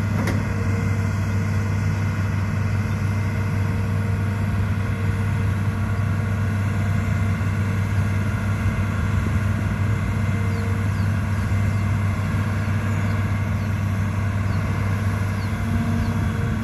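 Diesel engine of a Hitachi ZAXIS 210LC excavator running at a steady, unchanging pitch.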